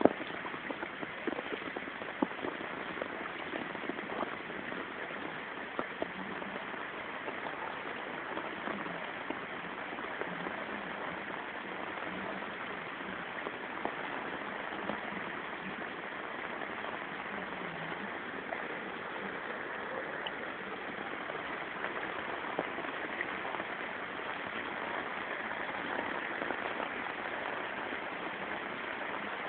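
Steady monsoon rain falling, with sharp drip clicks in the first couple of seconds.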